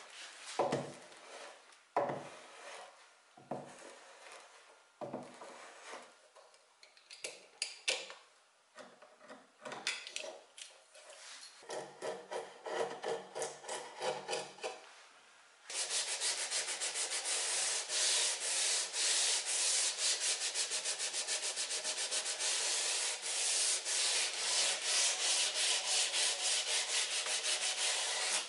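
Wood veneer edge banding being worked by hand. First a clothes iron slides over it in a few slow strokes, then a chisel pares off the excess strip in short scrapes. From a little past halfway comes fast, steady back-and-forth hand sanding of the new edge with a sanding pad, the loudest part.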